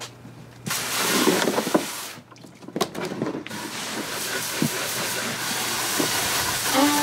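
A spray hissing in a steady burst of about a second and a half, then starting again a few seconds in and running on, with a few light clicks of handling in between.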